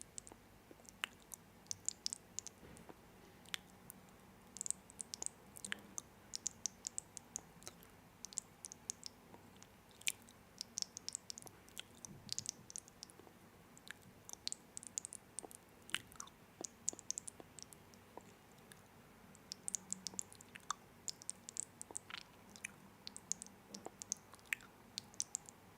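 Close-miked chewing of crunchy snack food: many small, sharp crackles and clicks at an irregular pace.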